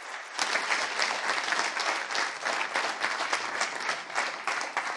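Audience applauding: many people clapping at once, growing louder about half a second in and then staying steady.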